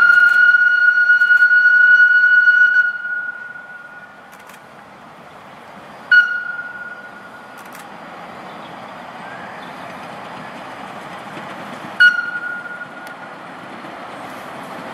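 Park railway steam locomotive whistling: one long blast of about three seconds, then two short toots about six seconds apart. Under them, the running noise of the approaching train slowly grows louder.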